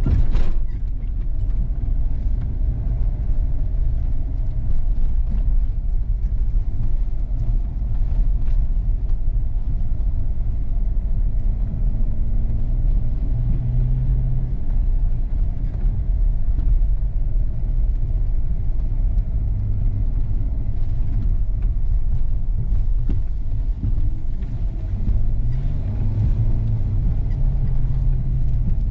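4x4 vehicle driving on a trail: a steady low rumble of engine and tyres, with the engine note rising briefly a couple of times and a sharp knock right at the start.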